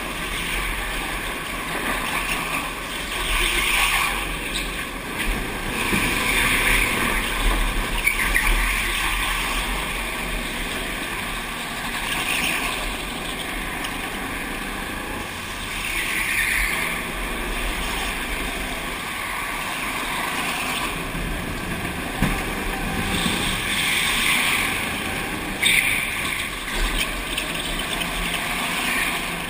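Go-kart engine running through laps of an indoor track, with a rushing noise over it and swells every few seconds as the throttle and speed change.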